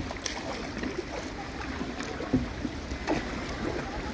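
Kayak paddle strokes dipping and splashing in calm water, with water sloshing against the plastic hull and a few small, sharp splashes about two and a half and three seconds in.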